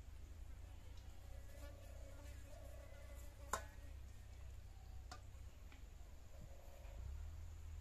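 A metal ladle clinks once sharply against a steel plate while curry is served, with a fainter tap a moment later. A faint buzzing comes and goes in the background.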